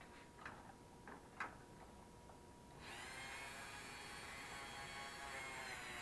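A few faint handling taps, then about three seconds in a flex-shaft rotary tool starts and runs with a steady high whine made of many stacked tones. Its pitch sags briefly near the end as it is pressed onto the dock power cord's plug.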